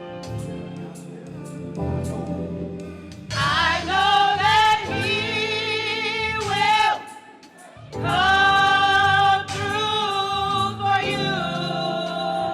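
Gospel choir singing long held notes with vibrato over a keyboard and drum accompaniment, breaking off briefly partway through before coming back in.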